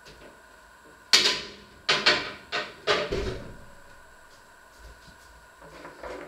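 A quick run of about six sharp knocks and clatters over two and a half seconds, starting about a second in, each dying away briefly: things being handled in a kitchen. A couple of faint knocks follow near the end.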